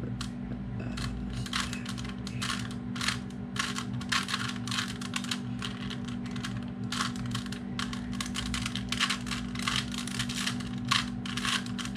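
A plastic Rubik's Cube being twisted by hand: an irregular run of quick clicks and clacks as the layers turn, over a steady low hum.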